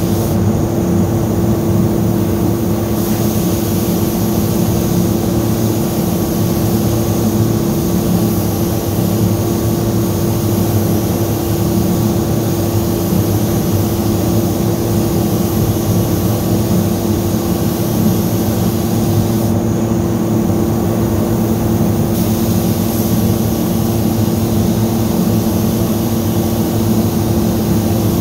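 Spray booth ventilation running: a loud, steady machine drone with a constant hum.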